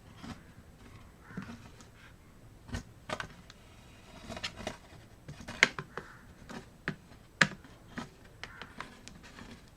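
Scattered light clicks and taps of plastic being handled, as a laptop keyboard and its top plate are pressed together and their plastic studs worked with a soldering iron tip. The sharpest clicks come in the second half.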